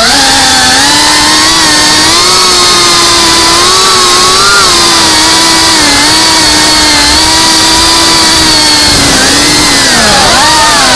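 Brushless motors and ducted propellers of a cinewhoop FPV drone, heard close up from its onboard camera: a loud, steady whine whose pitch shifts with the throttle, dipping and climbing back about ten seconds in.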